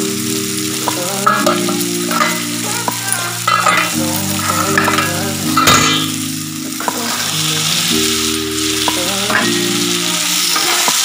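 Masala and potato chunks frying in a pan with a steady hiss. A spatula scrapes and knocks against the pan at irregular moments as the mix is stirred, over soft background music with held chords.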